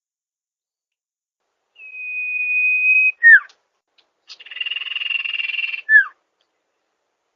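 Recorded call of a sirpu (sirdung) bird, played as a lure: after a pause, one long steady high whistle ending in a short sharp falling note, then a harsh buzzing rattle about a second and a half long, closed by another falling note.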